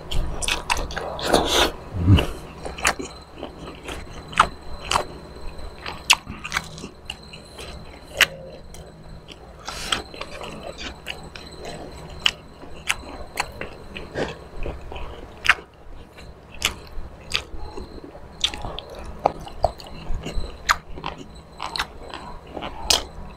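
A person chewing and smacking on soft braised milkfish eaten by hand, with many short wet mouth clicks scattered throughout. The loudest clicks come in the first two seconds.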